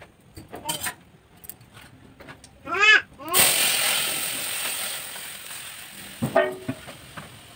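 Boiled dal poured into hot tempering oil in an aluminium kadai, setting off a loud sudden sizzle that fades away over about three seconds.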